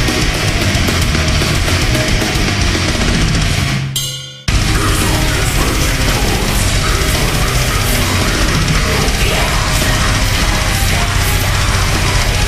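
Loud heavy metal music. About four seconds in it fades away for half a second, leaving a low note, then comes back in at once.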